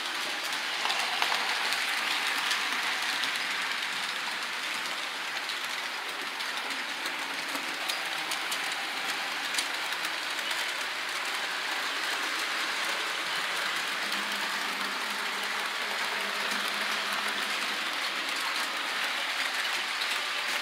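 Model train rolling along the layout track: a steady rattle of its wheels running over the rails, with faint scattered clicks.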